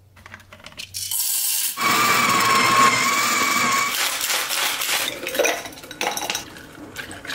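A Breville espresso machine runs with a steady whine for a couple of seconds. Then ice rattles and clinks in a cocktail shaker, and iced coffee is poured from it into a glass.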